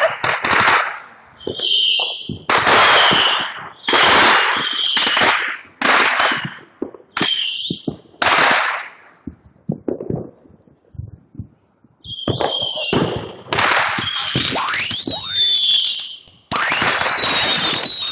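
Fireworks going off: a run of crackling bursts, each about half a second to a second long, with a lull about ten seconds in and falling whistles near the end.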